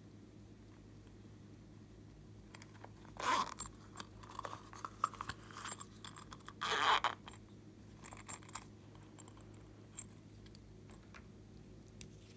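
Close-up handling of a small zippered silicone coin purse: two short rasping, scraping bursts a few seconds apart, with light clicks and taps in between, and a single small click near the end as a plastic lipstick tube is handled.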